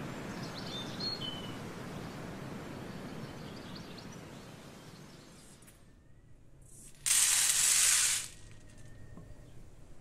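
Outdoor background with a few bird chirps about a second in. Later, dried chickpeas are poured from a bowl onto a large metal tray: one loud pour lasting just over a second.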